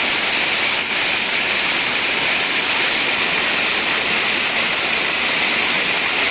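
A waterfall's falling water making a loud, steady rush with no breaks.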